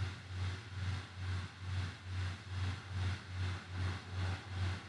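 Low background hum that swells and fades about twice a second, over a faint steady hiss.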